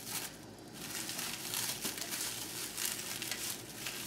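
Clear plastic cling wrap crinkling as hands fold and twist it tightly around a disc of sticky cookie dough, a continuous fine crackle that starts about a second in.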